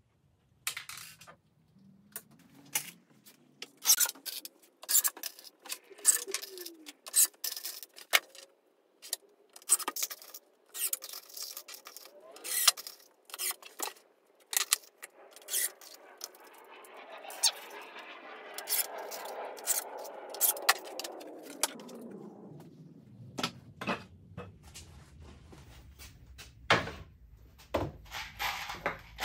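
Irregular clicks, taps and knocks of hands working on a melamine cabinet box: plastic leveler legs being fitted to its bottom panel and screws being handled. A soft rushing noise swells and fades in the middle.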